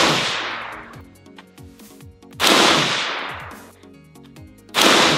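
Aero Precision M16A4-style 20-inch AR-15 firing 5.56 rounds in slow aimed fire: two shots about two and a half seconds apart, each with a long echoing tail, after the fading end of a shot at the start. Background music plays under the shots.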